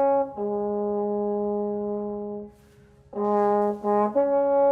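A brass instrument playing a few held notes: a short one, a long low note lasting about two seconds, a brief pause, then three shorter notes.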